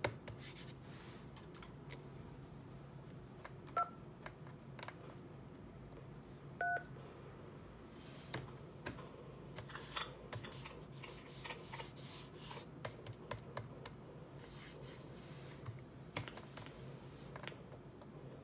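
Keypad buttons of a Polycom SoundStation 2 conference phone clicking as they are pressed. Two short two-tone dialing beeps sound, the first about four seconds in and the second, slightly longer, about seven seconds in.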